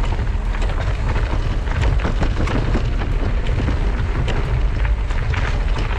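Mountain bike riding over a rocky dirt singletrack: tyres crunching on loose stones and the bike knocking and rattling over the rough ground, under a steady wind rumble on the handlebar camera's microphone.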